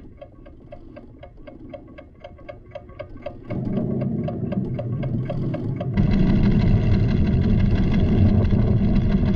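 Cartoon seismograph recorder ticking steadily, about four or five ticks a second, as its stylus traces the tremor, with a low rumble swelling underneath. About six seconds in, a much louder, dense rumbling sound cuts in suddenly.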